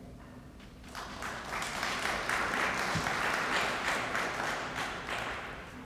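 An audience applauding: the clapping starts about a second in, builds, and dies away near the end.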